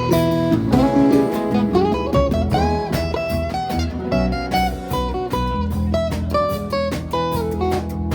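A live band playing an instrumental break: a guitar plays a lead line with bent notes over bass and drums.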